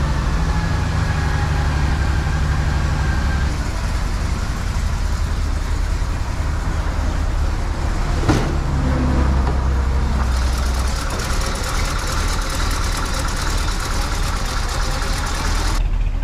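Vintage Chevrolet Impala's engine idling steadily after sitting unused for about two weeks. There is a single click about eight seconds in, and a hiss joins the idle about ten seconds in and drops away just before the end.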